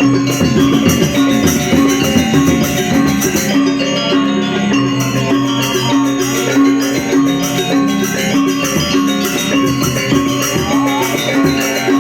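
Balinese gamelan playing: metal-keyed percussion ringing in a fast repeating pattern over drums.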